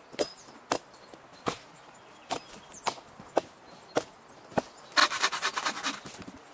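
Hatchet chopping into a fallen pine log: about eight sharp chops at an uneven pace, roughly half a second apart. Near the end comes about a second of rapid rasping from a bow saw cutting the wood.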